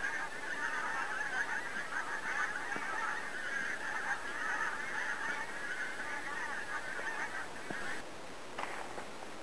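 A large flock of wild geese calling in flight, many overlapping honks in a continuous chorus. It cuts off abruptly about eight seconds in.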